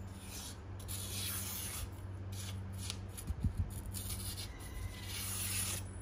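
Very sharp Japanese kitchen knife slicing through paper to test its edge: a few dry, rasping cutting strokes, the first two close together in the first two seconds and a longer one near the end.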